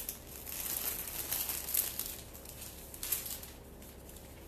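Florist's wrapping paper crinkling and rustling in irregular bursts as it is folded by hand around a bouquet; the crinkling dies down near the end.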